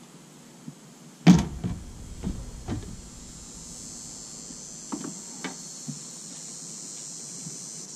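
A round boat's hull knocking against a folding fridge cart as it is rolled on its edge and tipped onto the cart. There is one sharp knock about a second in, then a few lighter thumps and small clicks.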